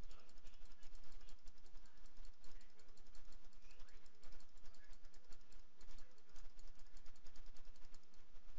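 Computer mouse button clicking rapidly, several clicks a second, over a steady low electrical hum.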